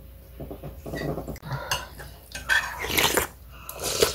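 Dish clatter as soup is poured from a stainless steel pot into a ceramic bowl: the pot knocks and scrapes against the bowl rim, with a few spoon clinks, in uneven bursts.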